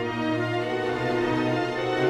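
Background orchestral music with strings playing long held notes over a steady low bass note.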